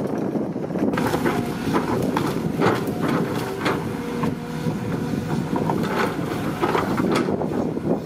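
Excavator at work: its engine running steadily, with a rapid series of sharp cracks and knocks from about a second in until near the end.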